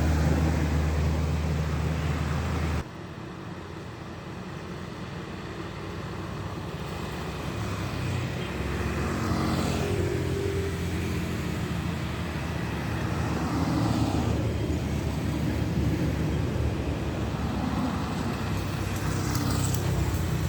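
Road traffic on a steep climb: heavy truck engines running under load, with vehicles going past several times. A steady low engine drone cuts off abruptly about three seconds in.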